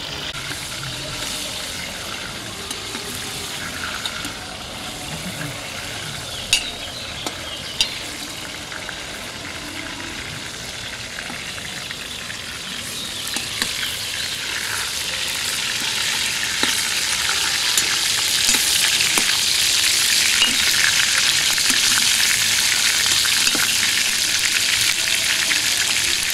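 Meat frying in hot oil in a kazan over a wood fire, stirred with a metal skimmer. The sizzle swells louder about halfway through and then holds steady, with two sharp clicks about a third of the way in.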